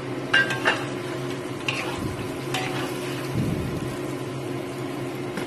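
Metal spatula stirring and turning chicken pieces in a wok, clinking against the pan a few times in the first few seconds, over the steady sizzle of the simmering sauce.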